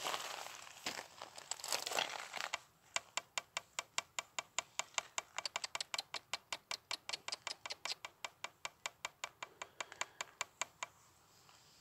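Brief rustling, then a spatula scraping and tapping against a black frying pan in quick even strokes, about five a second, for some eight seconds as it turns over chicken and rice.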